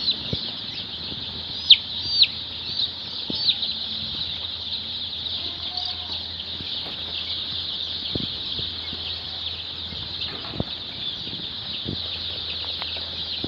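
A crowd of Kadaknath and Sonali chicks peeping without pause, a dense chorus of high, quick down-sliding cheeps, a few of them louder in the first few seconds. A few short soft knocks or wing flaps come in now and then.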